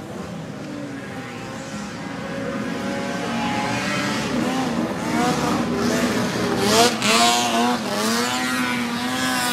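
Racing snowmobile engines running at high revs, their pitch sweeping up and down several times from about halfway through over a steady engine drone, loudest a little past two-thirds of the way.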